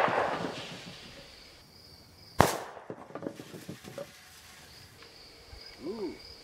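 A shotgun blast echoing away, then a second sharp shotgun report about two and a half seconds in, followed by a few light clatters as bowling pins fall. A steady high insect trill runs underneath.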